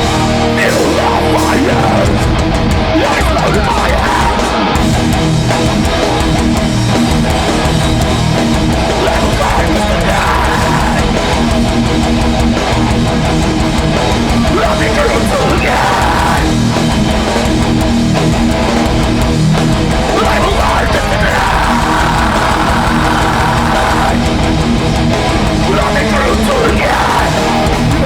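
A hardcore metal band playing live at full volume: distorted electric guitars and drums in a dense, continuous wall of sound.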